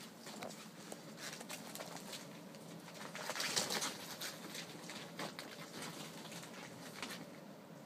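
Ferrets scrabbling among plastic ball-pit balls and plastic tubes: a steady patter of light clicks, taps and rustles, with a louder rustle about three and a half seconds in.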